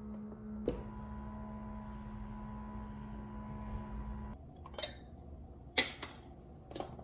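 A steady hum with a click about a second in, cutting off a little past halfway. Then three sharp clinks of dishes and cutlery on a meal tray, the middle one the loudest.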